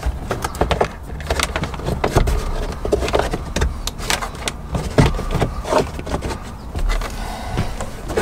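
Thin dash cam power cable being pressed into the gap along the vehicle's headliner by hand: irregular clicks, taps and rustling of the wire and fingers against the headliner and plastic trim.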